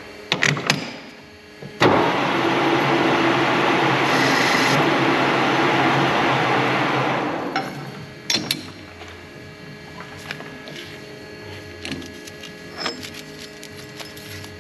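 Metal lathe work: a few sharp clicks and a knock, then a loud noisy rush lasting about five seconds that fades away, over a steady machine hum with scattered small clicks.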